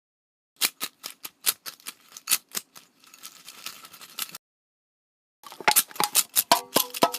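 Rapid, irregular clicks and taps of small hard objects, made as sound effects, in two runs split by about a second of silence; the second run is denser and carries a few short ringing tones.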